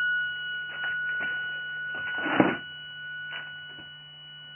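Homemade radiant-energy oscillator circuit running at 24 volts, giving a steady high-pitched whine with a fainter higher tone above it and a low hum underneath. A few short rustles break in, with a thump about two and a half seconds in.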